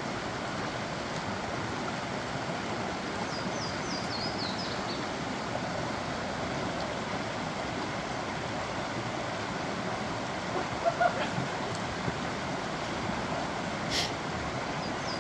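A mountain creek rushing steadily over rocks. A songbird sings a short run of high, falling notes about three seconds in, and a few soft knocks come near the end.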